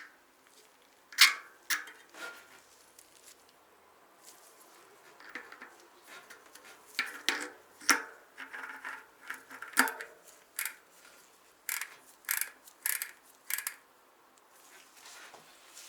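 Small metal parts and tools of a bicycle rear hub being handled: an irregular string of sharp clicks and taps. The loudest comes about a second in, and they come more often in the second half.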